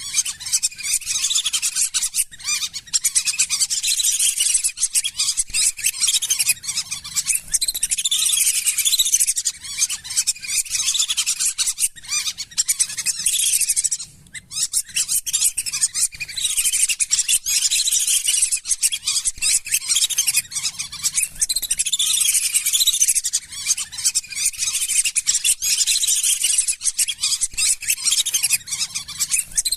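Lesser whistling ducks giving a dense, continuous run of high whistling calls, broken by a brief pause about halfway through.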